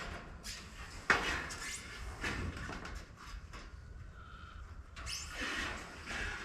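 Metal roofing panel being shifted and slid into place on the roof, scraping, with a sharp knock about a second in.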